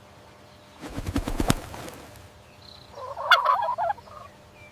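Wild turkey gobbling: one rapid, warbling gobble about three seconds in. It follows a short burst of sharp clicking or rattling about a second in.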